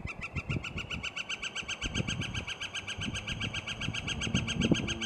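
Northern flicker giving its long call: a rapid, even run of high 'wick' notes, about eight a second.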